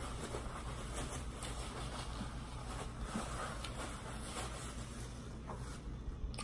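Quiet room with a steady low hum, faint paper-towel rustling and a few small clicks as mouth and hands are wiped.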